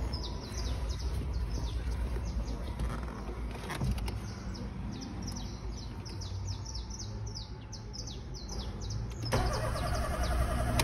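Birds chirping over a low rumble. Near the end, the starter motor of a VW Gol 1.6 begins cranking the engine with a fast, even rhythm, turning it over for a compression test on cylinder 1.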